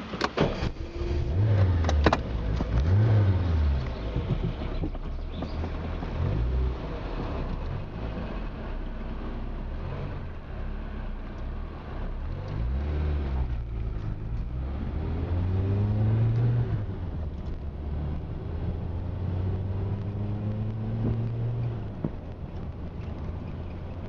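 Car engine running, its pitch rising and falling over and over as it accelerates and changes gear, then holding steadier for a few seconds near the end. A few sharp clicks come in the first couple of seconds.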